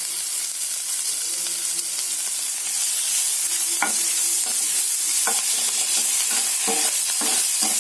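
Oil sizzling in a kadai as a gram-flour, onion and ginger-garlic paste mixture fries. A spatula scrapes and knocks against the pan several times from about four seconds in.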